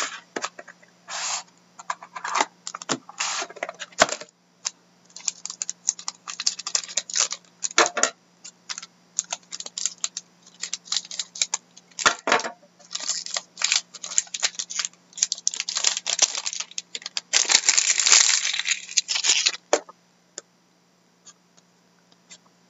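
Crinkling, tearing plastic wrapping and the clicks and rustles of a sealed box of hockey trading cards being opened by hand, in irregular bursts with the longest, loudest crackle near the end.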